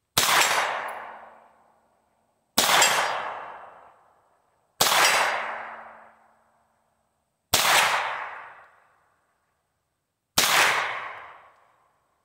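Five single shots from an AR-15 pistol fitted with a CMMG .22 LR conversion kit, fired slowly two to three seconds apart. Each crack has a tail that fades over about a second and a half.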